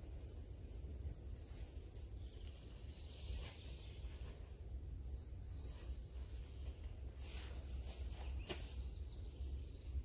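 Forest ambience: a few faint bird chirps over a steady low rumble, with a few short rustles.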